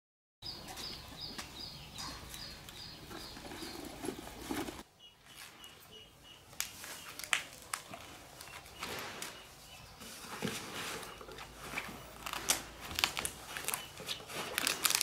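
A small bird chirps in a quick repeated series, about four chirps a second, for the first few seconds. After that comes the rustling and crinkling of large green leaves being folded by hand to wrap rice.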